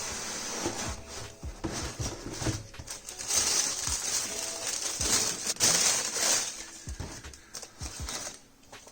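A cardboard shoebox being opened and its paper wrapping handled: crinkling and rustling paper with light knocks of cardboard, busiest in the middle.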